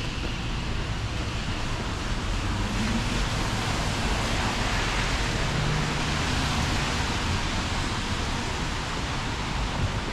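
Steady hiss of a rain-wet city street with traffic: tyres on wet pavement over a low rumble of vehicles, swelling a little in the middle.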